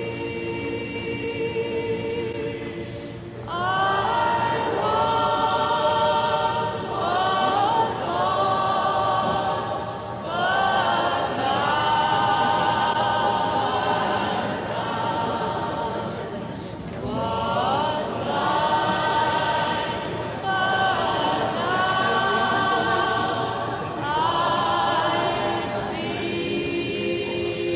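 A choir singing without accompaniment, in phrases a few seconds long that often begin with an upward slide in pitch; a lower held note carries the first few seconds.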